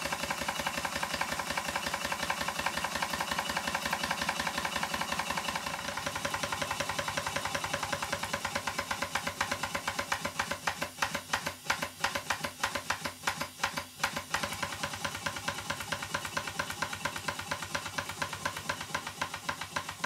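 Twin-cylinder Stuart 5A model steam engine running on compressed air, with rapid rhythmic exhaust chuffs and a steady mechanical knock that the owner puts down to the big end. The beat falters for a few seconds in the middle, then runs steadily again.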